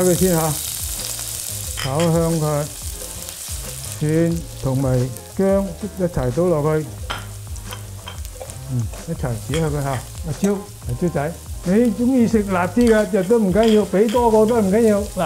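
Chopped red chilies sizzling in hot corn oil in a wok, stirred and scraped with a metal spatula; minced garlic and ginger go in and keep sizzling. The sizzle is strongest at the start, when the chilies hit the oil, then settles to a steady frying hiss under the stirring.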